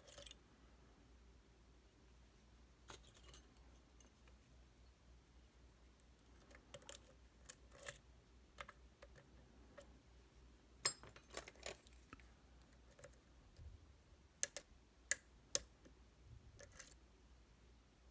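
Flag-style dimple pick working the pins inside a Titan T250 dimple lock: scattered small metallic clicks and ticks, with a sharper cluster about eleven seconds in and three separate clicks between fourteen and sixteen seconds.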